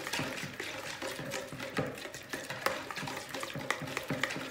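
Thick yogurt-and-tomato-paste marinade being whisked briskly in a plastic bowl: wet, sloshing stirring with a fast, irregular run of clicks.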